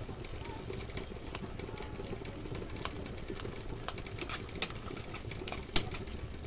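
Chopped tomatoes simmering in a nonstick frying pan while a metal spoon stirs and mashes them, with a few sharp clicks of the spoon against the pan, the loudest a little before the end.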